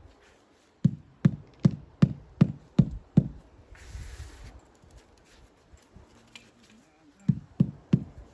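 Hammer blows: a run of seven even, dull knocks at about two and a half a second, then after a pause four more near the end.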